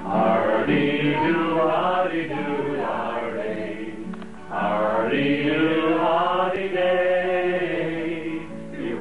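Men singing together in long, held notes, breaking off briefly about four seconds in and then going on.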